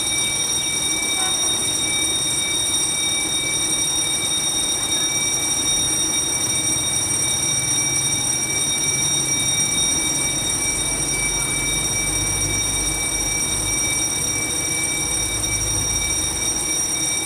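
Low rumble of a distant diesel locomotive approaching, growing stronger from about ten seconds in, under a steady high-pitched whine of several tones.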